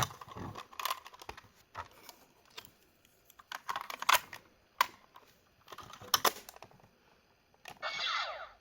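Sharp plastic clicks and button presses from a Gokai Cellular Memorial Edition toy phone being handled between sound effects. Near the end the toy starts a louder electronic sound effect with sweeping tones.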